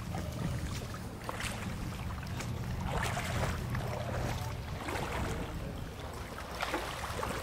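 Wind buffeting the microphone: a steady low rumble with irregular gusty rushes.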